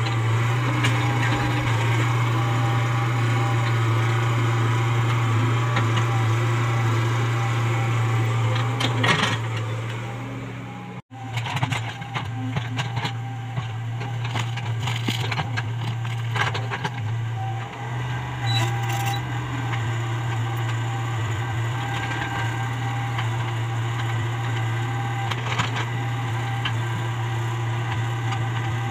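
Komatsu PC75UU mini excavator's diesel engine running steadily under load while it digs, with scattered knocks and clunks from the bucket and soil. The sound cuts out for an instant about eleven seconds in.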